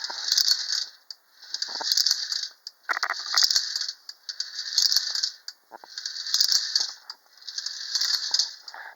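Unique Art Capitol Hill Racer, a 1930 tin-litho wind-up toy with a clockwork-type gear motor, running: a tinny metal rattle with sharp clicks that swells and fades in a regular cycle about every one and a half seconds.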